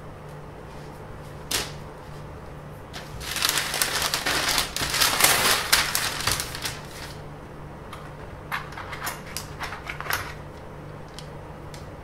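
A large sheet of paper rustling and crinkling for about four seconds as it is shifted on a workbench, followed by a run of light taps and clicks as a flexible ruler and pen are handled on it. A faint steady hum runs underneath.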